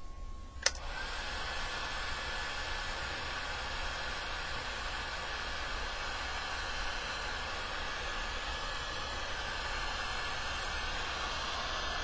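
Heat gun switched on with a click just under a second in, then blowing steadily with an even rushing noise.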